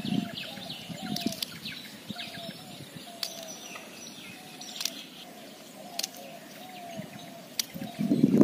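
Birds calling: a short call repeated about twice a second, with fainter high chirps over it and a few sharp clicks.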